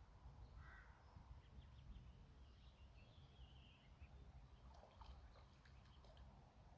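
Near silence with faint, short bird chirps and calls over a quiet outdoor background.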